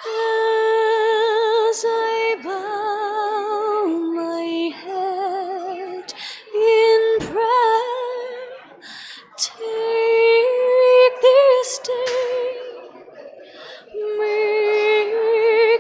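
A woman singing solo, holding long notes with a wide vibrato, phrase after phrase with short breaks between them.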